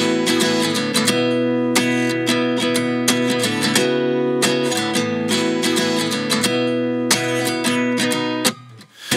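Background music: a strummed guitar in a steady rhythm, dropping out briefly near the end.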